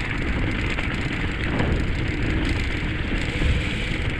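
Mountain bike tyres rolling over a wet, muddy and slushy track, a steady rushing noise with wind rumbling on the microphone.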